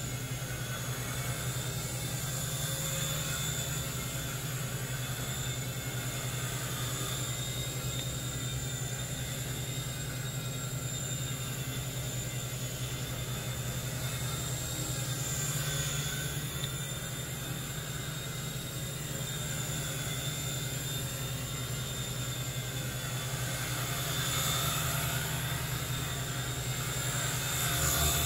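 Syma S39H XL fixed-pitch RC helicopter in flight: a steady whir from the rotor blades under a high whine from the electric motors. The whine shifts slightly in pitch as it manoeuvres, and the sound grows loudest near the end as the helicopter comes close.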